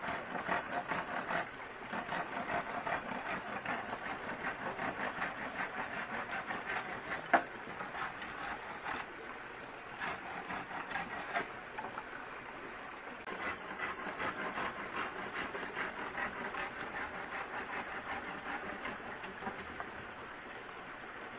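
Rhythmic strokes of a hand tool working wood or bamboo, several quick strokes a second in runs of a few seconds with short pauses between. A single sharp knock about seven seconds in.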